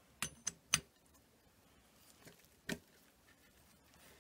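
Metal glow plug wrench clinking against the head of a nitro RC car engine: three sharp clicks in quick succession, one ringing, then one more about two seconds later.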